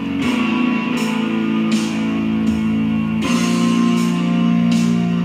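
Epic symphonic folk metal instrumental with guitars holding sustained chords. The chord changes about a quarter second in and again about three seconds in.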